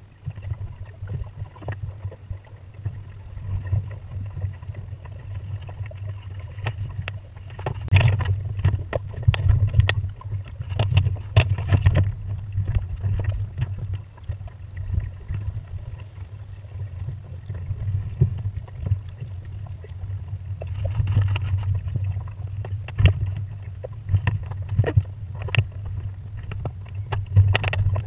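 A Pacer sailing dinghy under way: a low, fluctuating rumble of wind on the boat-mounted microphone, with irregular knocks and splashes of water against the hull that come in clusters.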